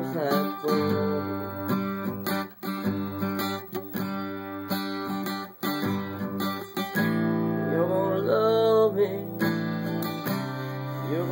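Country music led by a strummed acoustic guitar, with a melody line that bends up and down in pitch about two-thirds of the way in.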